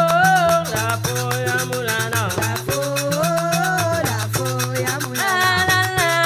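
Background music: a Latin-style tune with a held melody over a steady bass and a fast, even shaker rhythm.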